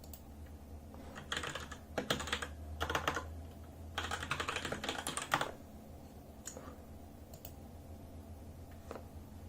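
Typing on a Razer BlackWidow mechanical keyboard with Razer Orange tactile switches: four quick runs of keystrokes in the first half, then a few single key presses.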